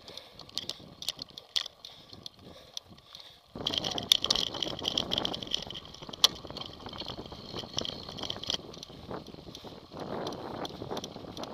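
Mountain bike ridden fast over a dirt trail, heard from a camera mounted on the bike: tyre noise with rattles and knocks over rough ground. About three and a half seconds in it turns abruptly louder and denser, with a steady hiss under the rattling.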